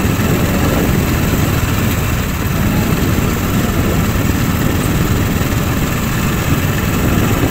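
Small motorcycle engine running steadily while riding, with a dense low rumble that does not change.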